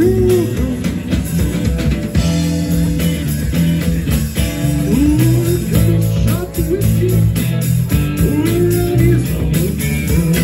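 Live rock band playing electric guitar, bass and drums, with sliding, bending notes about five seconds in and again near the end.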